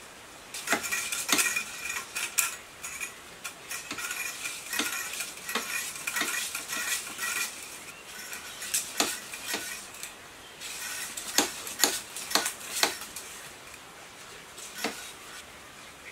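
Irregular metallic clicks and clinks from a hand-cranked coil-winding machine and its stepped former being worked while winding wire for a water pump motor's coils. For the first half the clinks come with a faint metallic ring; later they are single clicks, spaced out.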